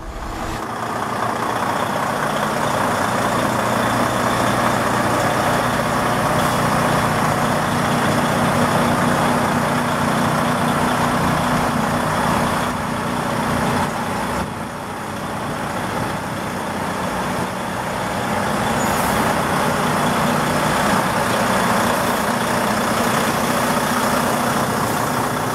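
Western Star semi truck's diesel engine running steadily as the truck drives, with a brief dip in level about halfway through.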